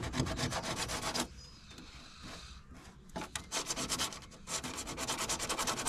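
A round sanding disc held in the fingers, rubbed by hand over a fibreglass bumper to take off stray body filler, in rapid short strokes. The strokes stop about a second in for nearly two seconds, then start again.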